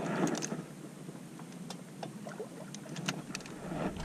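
Handling noise from a baitcasting rod and reel held against a chest-mounted microphone: sleeves rustle about the first half-second, then a few scattered sharp clicks from the reel and the angler's hands over a low, steady background hiss.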